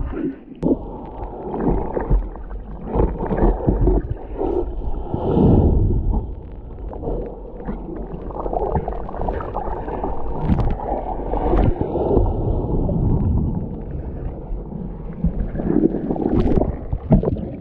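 Muffled underwater churning of heavy surf, with gurgling water and bubbles surging unevenly.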